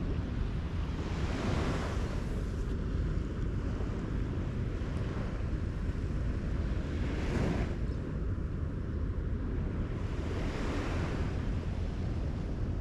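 Surf washing onto a sandy beach, swelling three times a few seconds apart, over a steady low rumble of wind on the microphone.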